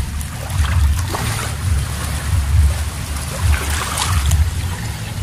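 Wind buffeting the microphone in uneven low rumbling gusts, over a soft hiss of calm shallow seawater lapping at the shore.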